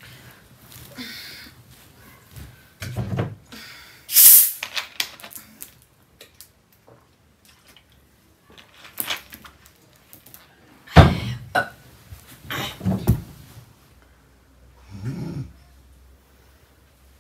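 Blanket rustling and a plastic soda bottle being handled as a woman sits up, drinks from it and lies back down, with several sharp knocks and clicks, the loudest about four and eleven seconds in. A short throaty sound comes near the end.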